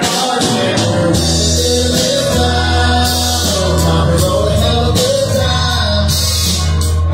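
Live band performing a song: a voice singing over guitar, with long steady bass notes underneath.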